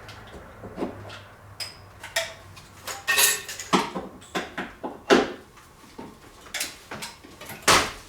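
Hand tools and loose metal parts clinking, tapping and clanking irregularly against each other, with a few sharper knocks about three, five and near eight seconds in.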